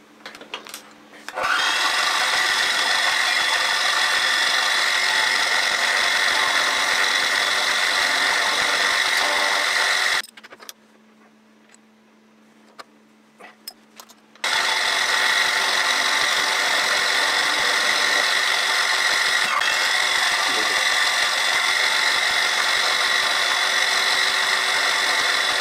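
An end mill cutting an aluminium block on a small milling machine: a loud, steady, high machining whine. The cut stops for about four seconds near the middle, leaving only the faint hum of the running spindle motor, then resumes.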